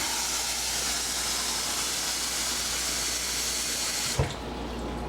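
Water running from a kitchen tap into a cup, a steady hiss that stops about four seconds in with a short knock.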